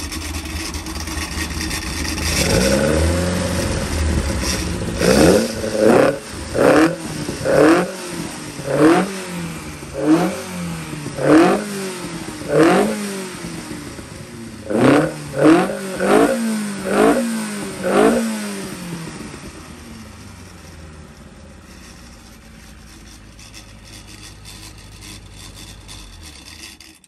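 Freshly built 1200 four-cylinder race engine on twin 45mm Dellorto carburettors, running off load on the dyno. After a few seconds of running it is blipped about a dozen times, each blip revving up sharply and falling straight back, then it settles to a quieter steady idle.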